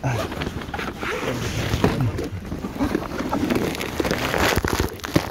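Handling noise: the camera's microphone rubbing against clothing and a car seat, rustling with scattered knocks that bunch together near the end.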